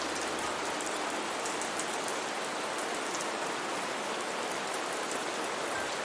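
Steady rain falling, an even hiss with faint pattering drops.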